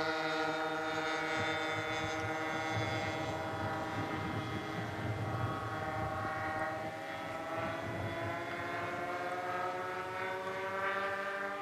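Twin DLE 20 single-cylinder two-stroke gasoline engines of a radio-controlled Cessna 310 model plane droning steadily in flight overhead, the pitch drifting slightly up near the end.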